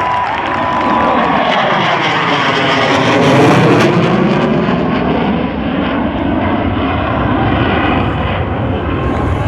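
JF-17 Thunder fighter's single Klimov RD-93 turbofan jet engine, loud as the jet passes, with a sweeping, phasing whoosh that peaks about three and a half seconds in.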